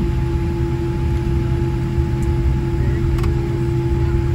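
Steady cabin drone of a Boeing 787-10 taxiing, heard from inside the cabin: a low rumble under a steady hum, with one faint click about three seconds in.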